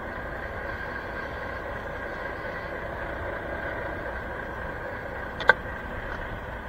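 Truck engine idling steadily, with one sharp click about five and a half seconds in.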